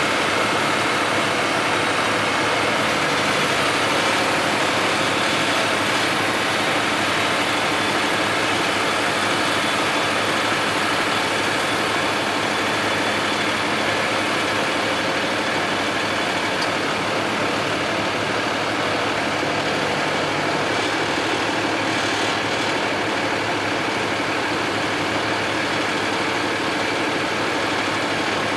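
Engine of a truck-mounted under-bridge work platform running steadily at idle while its hydraulic tower is swung upright.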